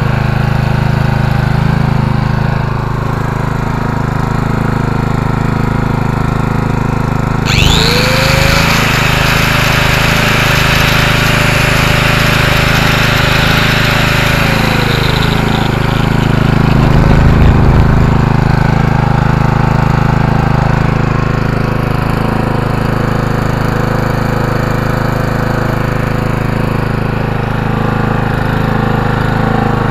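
Honda GX200 petrol generator engine running steadily with a constant hum. About seven seconds in, an electric power tool run off the generator switches on, its motor whine rising fast to a steady high pitch with a hiss over it, then winding down about eight seconds later, followed by a brief louder rumble.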